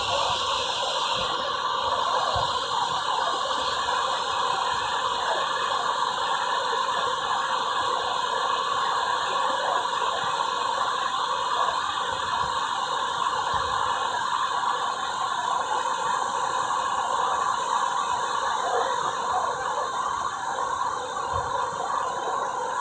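Courtallam waterfall in heavy flood flow, the water crashing down the rock face in a steady, unbroken rush.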